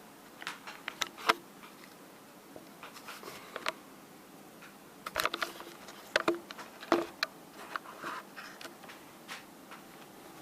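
A tool working at the seam of a 9-volt battery's metal casing: irregular clicks and short scrapes of metal, busiest in a cluster a little after the middle.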